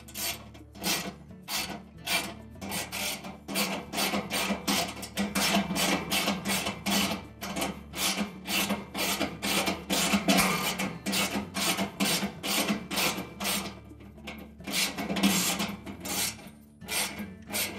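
Ratchet wrench with a 1/2-inch socket clicking in quick, even strokes, about two to three a second, as bolts are run in and tightened.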